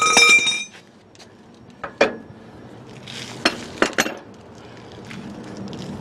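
Steel hand tools and the ball-joint press clinking against each other: a ringing metallic clank at the start that dies away within about half a second, then a sharp clink about two seconds in and a few more around three and a half to four seconds in.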